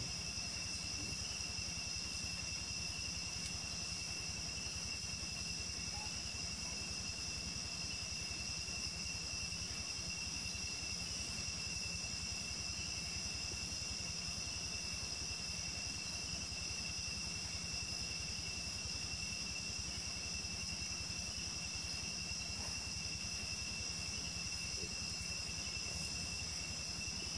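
Steady chorus of night insects, a continuous high-pitched trill at two pitches, over a low steady hum.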